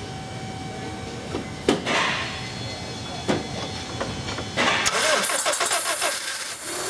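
2001 Honda Civic 1.7-litre four-cylinder engine cranking, then catching about four and a half seconds in and running louder but bogging, as if starving for fuel. The rough start is the sign of an incorrectly installed timing belt that has put the valve timing out.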